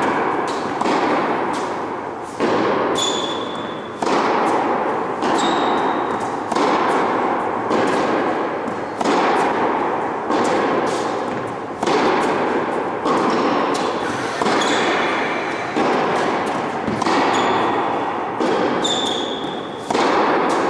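Tennis rally on an indoor hard court: racket strikes and ball bounces about once a second, each echoing in the large hall, with a few short high squeaks in between.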